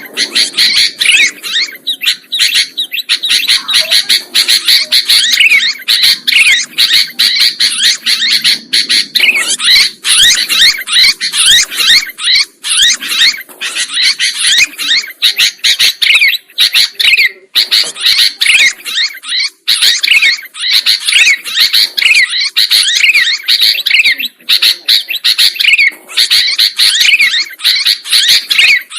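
Sooty-headed bulbuls (kutilang) calling busily: a dense, unbroken stream of quick chirps and short rising and falling whistled notes.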